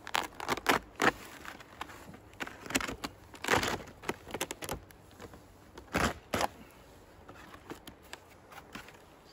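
Birch bark being cut with a knife and peeled off a dead birch snag: a series of sharp cracks, scrapes and rips, with the loudest in the first second, around three to four seconds in, and again about six seconds in.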